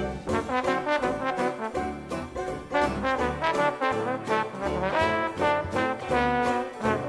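Upbeat jazz background music led by brass, trombone and trumpet, over a steady bass beat.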